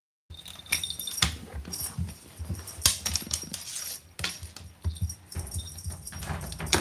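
A cat playing with a feather teaser toy on a wooden floor: irregular knocks, taps and scrapes as paws and the toy hit and slide on the floorboards.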